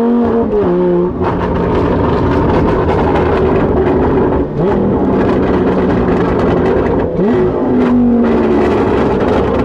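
Lamborghini Gallardo Super Trofeo Stradale's V10 with a straight exhaust, loud from inside the cabin, accelerating hard under a dense rattle of cracks from the exhaust. The sound drops briefly about a second, four and a half and seven seconds in as it shifts up, and the revs climb again after each shift.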